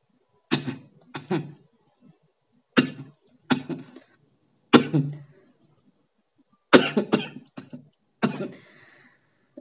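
A person coughing in short, sharp bursts, several of them paired and a quick cluster of them about seven seconds in. The coughing is an irritation response to sniffing dried red chilli while trying to bring on a sneeze.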